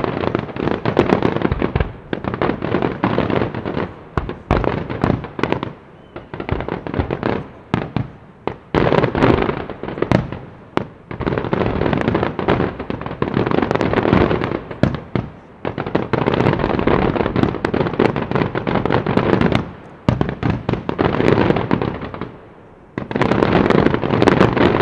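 Aerial fireworks shells bursting in rapid, dense volleys of bangs. The volleys come in about nine clusters, each lasting one to four seconds, with brief lulls between them.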